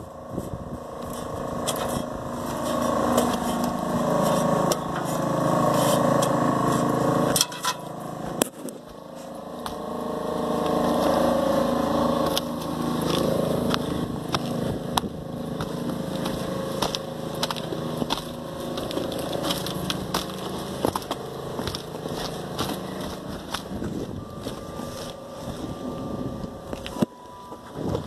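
A motor running steadily, with scattered clicks and crunching sounds over it.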